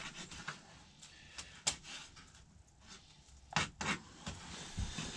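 Kitchen knife cutting moose meat into small chunks on a cutting board: a few sharp taps of the blade striking the board, one about two seconds in and two close together near four seconds.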